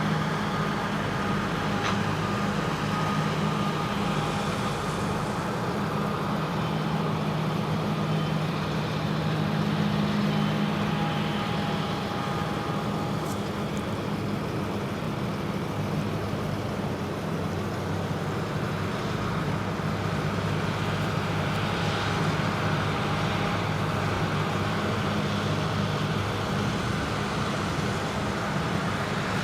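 Krone Big X 1100 self-propelled forage harvester running steadily at full power while chopping a standing triticale crop, a constant deep engine drone that holds at an even level.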